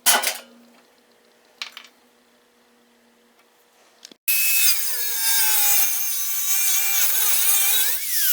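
Two sharp metal clanks, then an angle grinder with a cutoff wheel cutting into steel conduit for about four seconds. Its whine sags under the load of the cut and rises again just before it stops.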